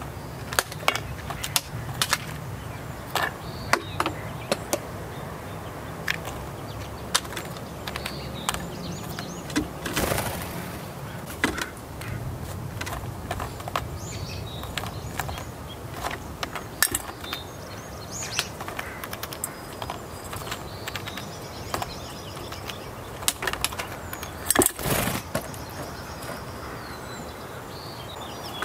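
A Steller's jay picking through peanuts in a stainless-steel bowl: irregular sharp clicks and knocks of shells against the bowl, with a brief flurry of wing flaps about three quarters of the way through as it flies off.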